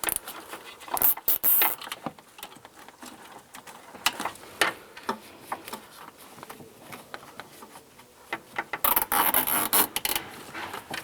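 Plastic wire ties and wiring being handled inside a vehicle door: scattered small clicks and rattles, with a longer rasping stretch near the end, the loudest part, as a tie is pulled tight.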